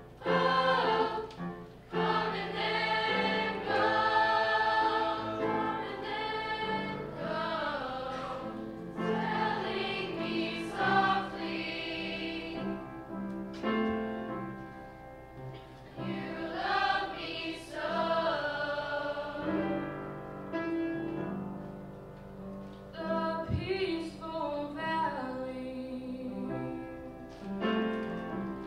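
A mixed choir of teenage boys and girls singing together, in phrases with short breaks between them.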